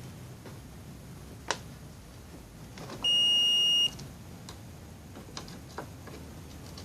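Digital multimeter beeping once with a steady high tone lasting just under a second, during diode testing on a welding machine's circuit board. A sharp click comes about a second and a half in, and a few lighter clicks follow the beep.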